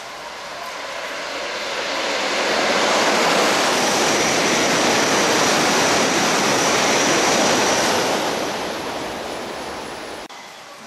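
E2 series Shinkansen running through at speed on a rain-soaked line: a rushing noise of the train and its spray swells over about two seconds, holds for about five seconds with a thin high whine in the middle, then fades away. Rain hiss lies underneath.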